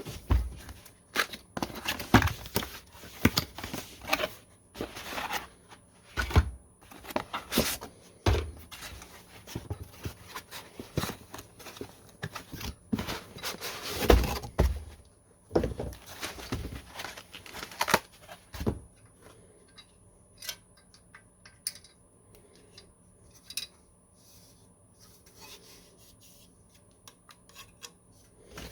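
Computer parts and their packaging being handled at close range: irregular clicks, knocks, thunks and scrapes, dense at first and sparser and quieter in the last several seconds.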